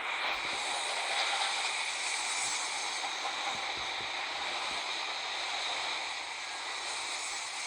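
Freight train rolling past, its wheels on the rails making a steady hiss.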